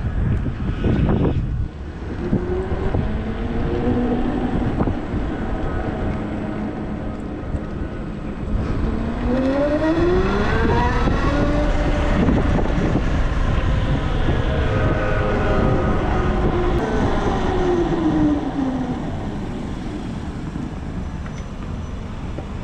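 Zero FXS electric motorcycle's drive whining as it pulls away and rides, its pitch rising as it speeds up about ten seconds in and falling again as it slows a few seconds later. Under it, a steady rush of wind on the microphone.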